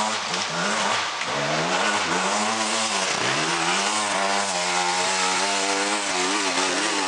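Enduro dirt bike engine revving hard under load on a steep climb, its pitch rising and falling with the throttle, dipping about three seconds in and then holding high.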